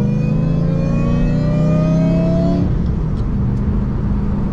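Lexus GS400's 4.0-litre 1UZ-FE V8 accelerating hard, heard from inside the cabin, its pitch climbing steadily until the revs drop about two and a half seconds in. After that it runs on at a steady lower note.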